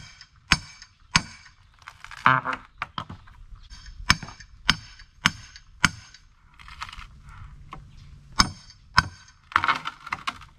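Claw hammer striking a steel pry bar to knock old wooden fence boards loose, each blow a sharp ringing clank. The blows come in two runs at about one and a half a second, with a pause in the middle, and a few short squeals between them.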